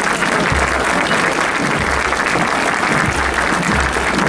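A crowd applauding steadily, a dense crackle of many hands, with low thuds recurring underneath.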